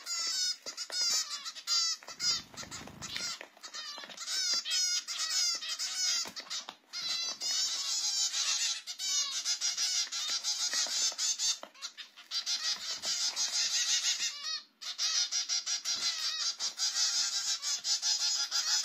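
A brood of young Java sparrows making rapid, continuous high-pitched begging chirps while being hand-fed: hungry fledglings calling for food. The chorus grows denser and louder from about eight seconds in, and there is a brief low rustle about two seconds in.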